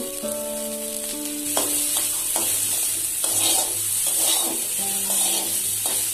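Potato cubes sizzling as they fry in a little oil in a steel kadai, with a metal spatula scraping the pan several times as they are stirred, over background music.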